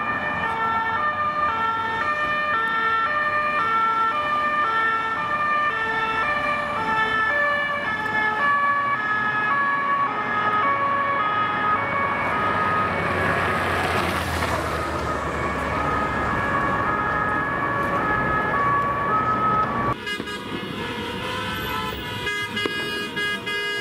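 French two-tone police siren alternating steadily between two notes, about a fourth apart, on passing unmarked police cars. About twenty seconds in it cuts off and gives way to a quieter mix of street traffic and car horns.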